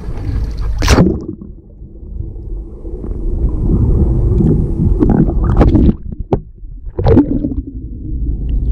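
A camera plunging into the sea with a splash about a second in, then muffled underwater rumbling and swishing of water past the camera, with a few louder swooshes around five to seven seconds in.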